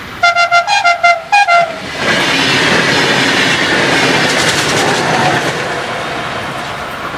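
UT-440 electric multiple unit sounding its horn in a quick run of about seven short blasts, then passing at speed with a loud rush of wheels on rail and a rhythmic clatter over rail joints, slowly fading near the end.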